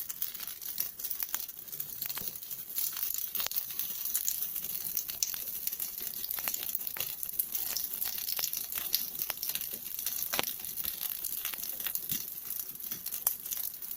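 Campfire burning: wood crackling with many irregular sharp pops and snaps over a steady high hiss of the flames.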